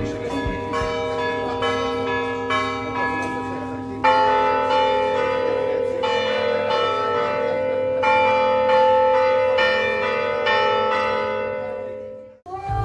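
Bells ringing in a quick run of repeated strikes over long, overlapping ringing tones, with a louder round starting about four seconds in, fading out near the end.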